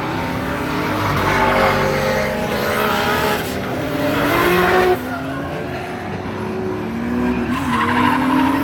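Drift car sliding through a run: the engine revs hard, its pitch climbing and dropping several times, with tyres squealing through the slide. The loudness falls off suddenly about five seconds in, then the revving and tyre squeal build again near the end.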